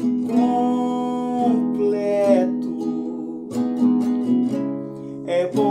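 A man singing a slow Portuguese-language ballad to his own nylon-string acoustic guitar, the voice holding long notes over the guitar accompaniment.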